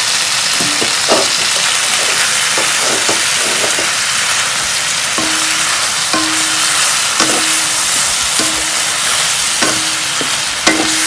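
Kailan (Chinese broccoli) sizzling in a hot oiled wok while a wooden spatula stir-fries it. The steady hiss of frying runs under the scrapes and tosses of the spatula, which come about once a second in the second half, each followed by a brief low tone.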